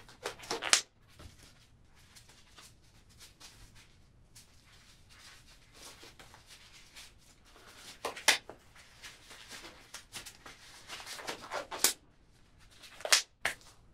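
Handling noises: faint rustling over quiet room tone, broken by a few short sharp clicks, the clearest about eight, twelve and thirteen seconds in.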